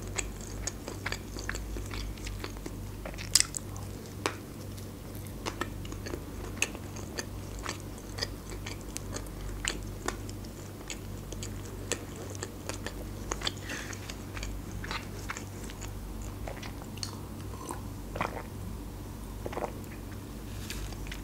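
Chewing a mouthful of fast-food tortilla wrap close to the microphone: a run of small wet mouth clicks and light crunches, a few of them louder.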